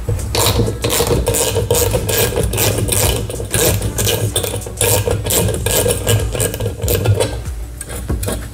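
Socket ratchet wrench clicking rapidly and unevenly as a half-inch hex nut is backed off a sheet-metal case.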